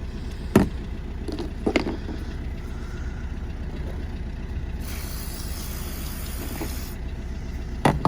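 A few sharp clicks and knocks of small lock parts being handled, over a steady low rumble, with a stretch of soft hiss in the middle.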